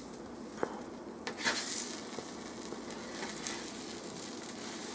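Buttered grilled cheese sandwich sizzling steadily on a hot electric griddle, with a few brief clicks and scrapes as it is handled.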